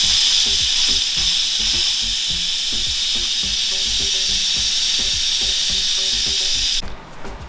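Instant Pot electric pressure cooker venting steam through its pressure-release valve: a loud, steady hiss that stops abruptly near the end. Background music with a beat plays underneath.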